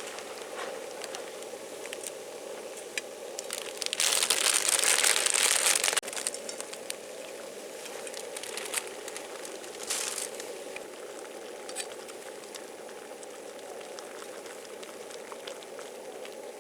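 Steady crackling and small clicks over a constant low hum. A loud hissing rush lasts about two seconds from about four seconds in, with a shorter one near ten seconds.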